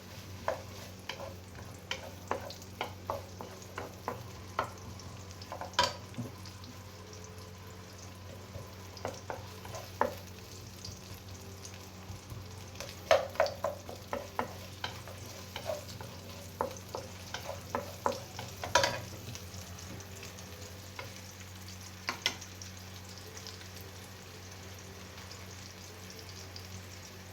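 Chopped onion sizzling in hot cooking oil in a pan, with scattered sharp clicks and taps of a utensil against the pan as it is stirred.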